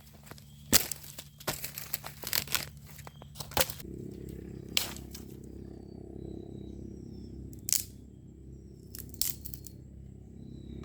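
Footsteps crunching and crackling on dry leaves and twigs. About four seconds in, a steady low hum begins, with a few faint bird chirps over it, and it cuts off abruptly near the end.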